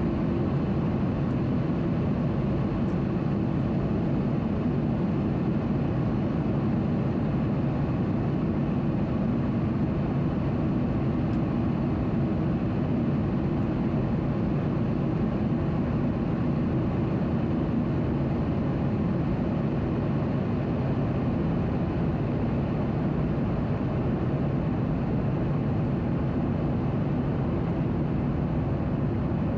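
Steady cabin noise inside a Boeing 737-800 in flight: the even rush of airflow over the fuselage and the drone of its CFM56-7B turbofan engines, unchanging throughout.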